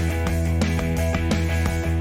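Background music: a guitar-based rock track with strummed guitar and a steady bass line.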